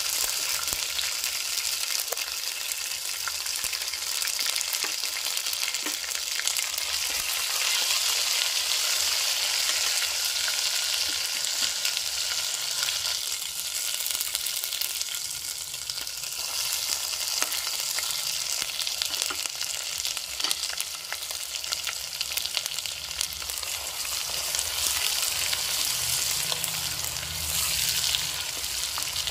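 Hot oil sizzling steadily as garlic, green chillies and curry leaves fry, with small crackles and pops. Near the end, chopped onion is stirred into the oil with a spoon.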